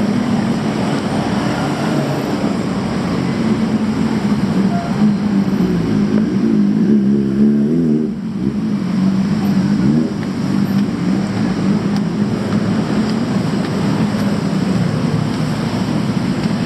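Street traffic with a vehicle engine running steadily close by; its pitch wavers up and down about seven seconds in and briefly again around ten seconds.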